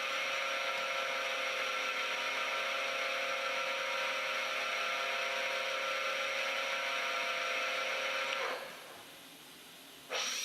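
Haas VF-4 CNC mill's geared spindle running at a steady speed with a whine of many tones. About eight and a half seconds in it winds down and goes quiet for about a second and a half, then spins back up sharply just before the end as it is brought to a new speed.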